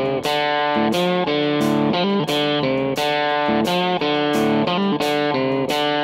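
Background music: plucked guitar notes in a steady rhythm.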